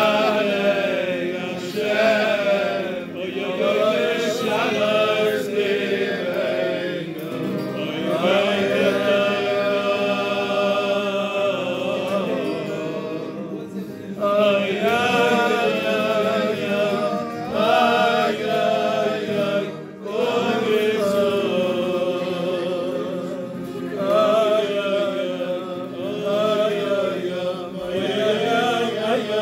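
A man singing a Jewish table song in a strong voice, with long, wavering held notes.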